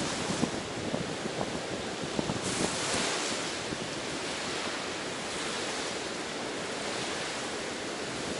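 Sea waves washing onto a beach in a steady hiss, one wash swelling louder about two and a half seconds in, with some wind on the microphone.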